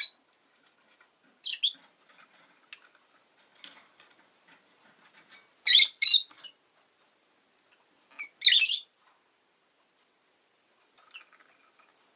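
Rosy-faced lovebird giving short, high-pitched chirps in scattered bursts: one about a second and a half in, two close together near the middle, another about two-thirds through, and a faint one near the end.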